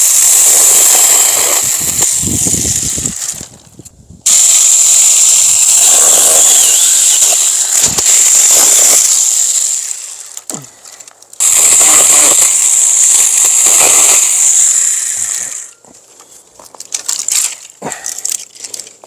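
Small electric chainsaw cutting through a thick tree branch in three long runs of several seconds each, with short pauses between them, then fainter scraping and rustling near the end.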